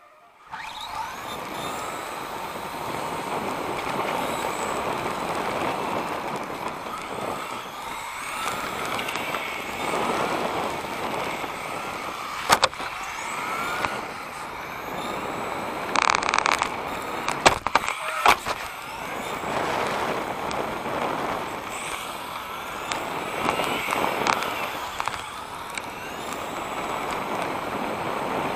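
Onboard sound of a 1/10 electric RC touring car racing on asphalt: the Hobbywing V10 21.5T brushless motor whines up and down with the throttle over drivetrain and tyre noise. A few sharp knocks and a short clattering burst come past the middle.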